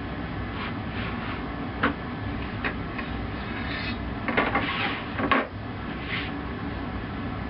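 Heavy sheet metal being worked with a hand bending tool: a few sharp metallic knocks, then a louder stretch of clattering and scraping about four to five seconds in, over a steady background hum.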